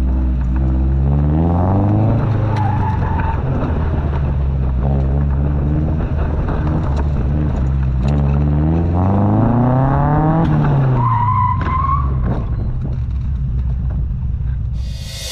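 Morgan sports car engine accelerating hard and lifting off as it is thrown around tight turns, its revs rising and falling twice. The tyres squeal briefly twice, about a fifth of the way in and again about three quarters through.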